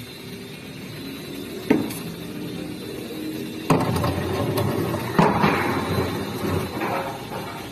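Heavy steel pieces clanking and banging as they are loaded onto a truck bed: three sharp metal hits, the later two followed by rumbling and scraping as the steel settles.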